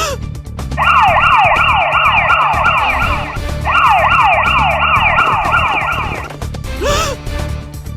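Police car siren in fast yelp mode, rapid rising-and-falling wails about three a second, in two stretches with a brief break in the middle. A short rising whoop comes at the start and another near the end, over background music with a low beat.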